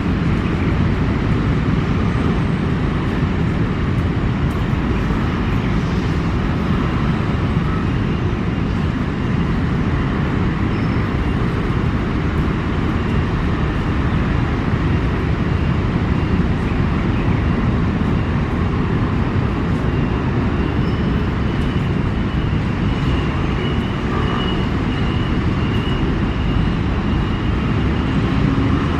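Steady low rumble of city traffic, unbroken throughout, with a faint thin high tone joining in the second half.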